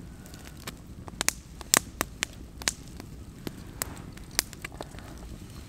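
Wood campfire crackling, with sharp irregular pops about twice a second over a low steady rush.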